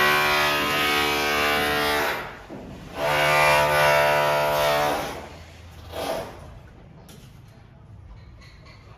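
A power tool's motor runs in two bursts of about two seconds each, holding a steady pitch. A shorter burst comes about six seconds in, then only quieter background noise.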